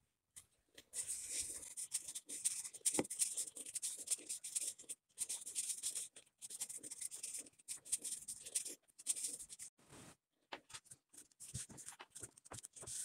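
Net yarn rubbing and rustling against a cardboard paper-towel tube as it is wound on by hand: scratchy stretches of a second or so with short pauses, one sharp click about three seconds in, and shorter separate scratches near the end.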